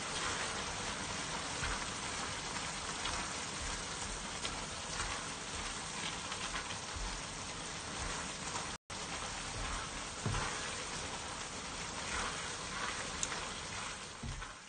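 Fuzzy melon and glass noodles sizzling in a wok as a silicone spatula stirs them, a steady hiss with faint soft scrapes. It breaks off for an instant about nine seconds in.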